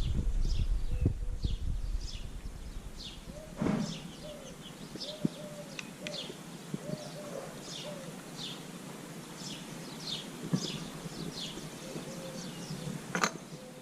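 Small birds chirping, short falling chirps about once a second, with a dove cooing softly in between. A low rumble fades out in the first few seconds, and there are sharp knocks about four seconds in and near the end.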